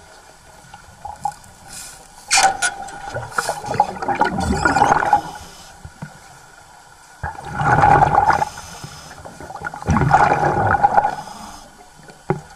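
Underwater: a scuba regulator's exhaust bubbling in three bursts of one to three seconds each, each starting sharply and carrying a steady tone through the bubbling.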